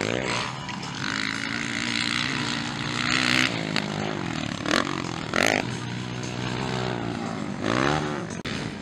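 Motocross dirt bike engines revving, the pitch holding steady for a second or two and then climbing and dropping with throttle and gear changes, with a few short sharp cracks in between.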